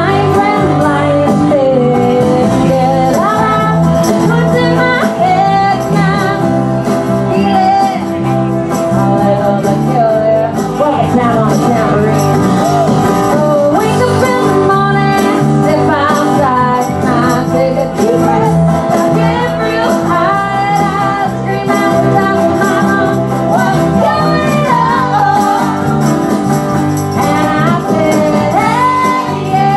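Live band playing a song: a woman singing lead over acoustic guitar, electric bass and drums.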